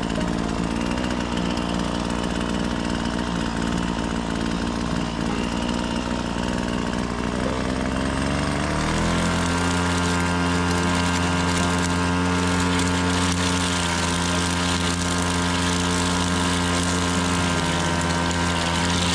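Small petrol engine running, revving up about nine seconds in and then holding steady at the higher speed.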